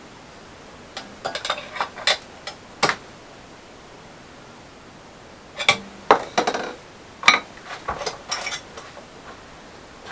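Metal pieces clinking and clanking together as they are handled and set down, in two bursts of several sharp knocks, some ringing briefly.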